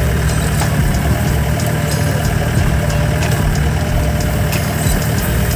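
An off-road jeep's engine idling steadily, with faint scattered ticks over the low rumble.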